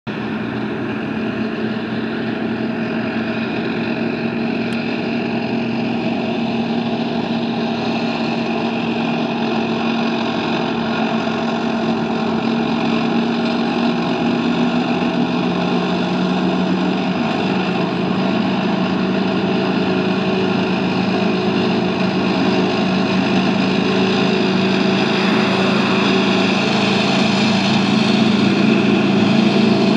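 Armoured convoy of Puma infantry fighting vehicles approaching along a road: a steady engine drone that grows gradually louder, with a slight drop in engine note about halfway.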